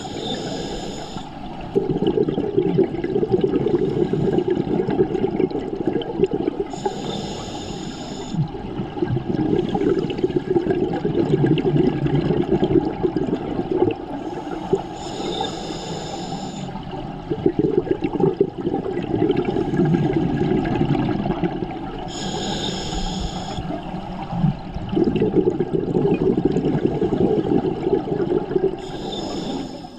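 Scuba diver breathing through a regulator underwater: a short hissing inhale, then a long bubbling exhale, repeating about every seven seconds with five breaths in all.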